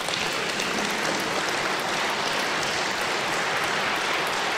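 Audience applauding: steady, dense clapping that begins just before this stretch and holds at an even level throughout.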